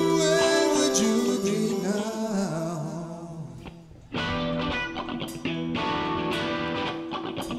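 Live rock band playing, with singing and guitar. The music thins out and drops away for a moment about four seconds in, then the full band comes straight back in.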